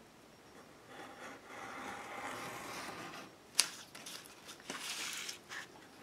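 Craft knife drawn along a ruler, slicing through paper-backed foil tape on a cutting mat: a faint scrape lasting a couple of seconds, then a sharp click.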